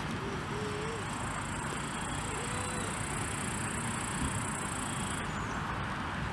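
Low, steady rumble of a ChS4T electric locomotive and its passenger train approaching from a distance, with a steady high-pitched buzz over it that cuts out about five seconds in.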